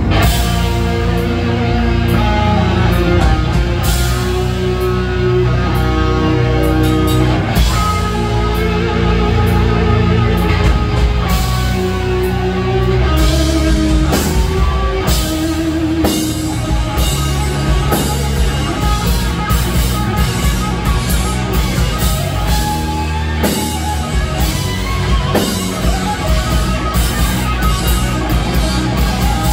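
Live rock band playing: electric guitars and bass over a drum kit, with sustained guitar notes changing pitch and a steady beat of drum and cymbal hits.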